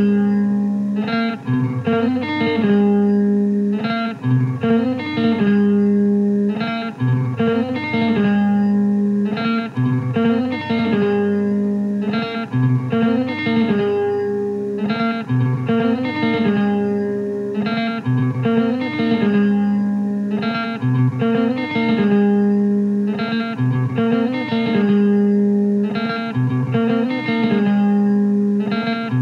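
Music: a guitar repeating a looping figure of plucked notes over a held low note, the pattern coming round about every two seconds.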